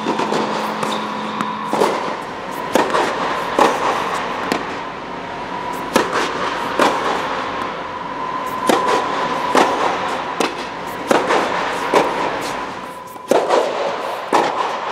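Tennis balls struck back and forth with rackets in a fast rally, sharp pops about once a second, over a steady background hiss. The hits ring out in a large indoor court.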